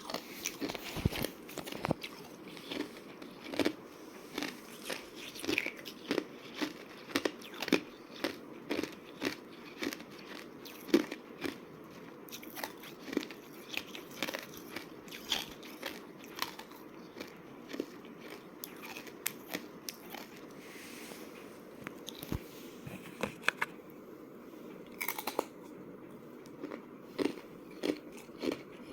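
Person biting and chewing thin slab ice close to the microphone: sharp crunching snaps at an irregular pace of about one or two a second, quieter from about 16 to 22 seconds in, with a few louder cracks soon after.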